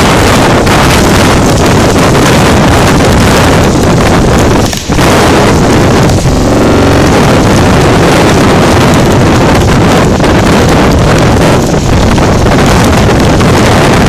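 Typhoon-force wind buffeting the microphone: a loud, continuous rush of gusts, with the storm's rain and sea spray underneath. The rush drops out briefly about five seconds in.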